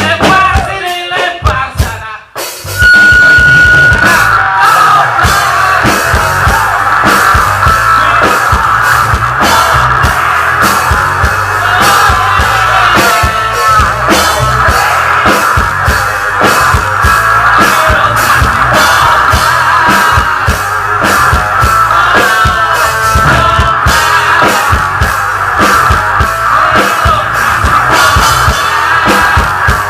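Live rock band playing loud with drum kit and electric guitars; after a brief break about two and a half seconds in, the full band comes back in under a held high guitar note and keeps a steady beat.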